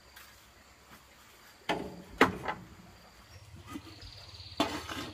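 A few sharp knocks and clatters, the loudest about two seconds in, then near the end the clank of a metal pot lid being lifted off a cooking pot.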